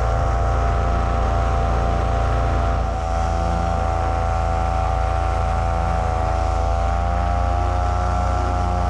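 Paramotor engine and propeller running steadily in flight, a constant drone that holds the same pitch throughout.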